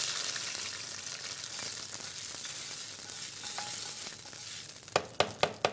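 Hot ghee tempering with fried garlic poured onto mustard-greens saag, hissing and sizzling as it hits, then dying down over a few seconds. Near the end, a quick run of sharp knocks starts, about four or five a second.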